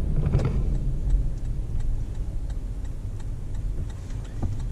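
Low engine and road rumble inside the cabin of a 2018 Lexus LX570 with its 5.7-litre V8 pulling away and turning, with faint ticking over it.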